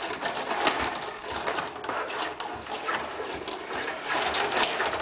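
Table hockey game in play: a continuous quick clatter of control rods sliding and spinning in the table, with plastic players knocking against the puck and each other.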